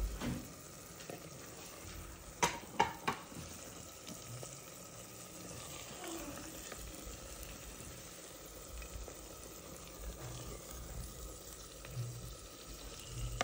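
A ladle scooping and scraping keema from a clay pot onto a ceramic plate, with three sharp clinks about two and a half seconds in and a few soft low thumps.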